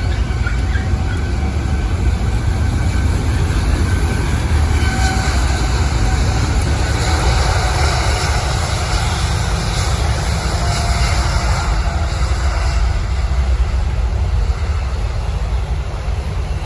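Jet airliner engines running loud and steady: a deep rumble with a faint whine over it, easing slightly near the end.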